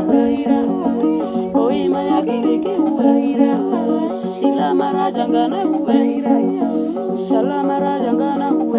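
Music: a voice singing over steadily plucked strings, ukulele- or guitar-like.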